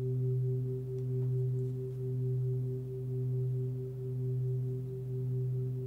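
A 28 cm hand-hammered Tibetan singing bowl ringing on its low fundamental, about 126 Hz (the note B), with fainter higher overtones. The tone holds steady, swelling and fading about once a second.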